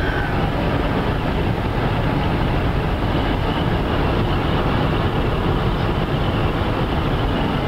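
Steady rumble of road and wind noise inside a moving car.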